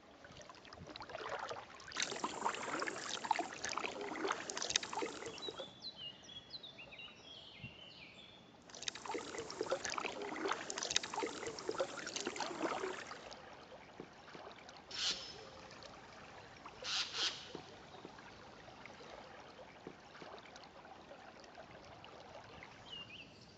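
Kayak paddle strokes splashing in river water, in two long stretches of several seconds each, then two single short splashes. A bird chirps briefly between the stretches and again near the end.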